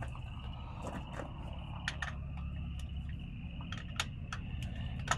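Scattered sharp light clicks and taps, a few each second, over a steady low rumble and a faint continuous high trill. No air impact wrench is running.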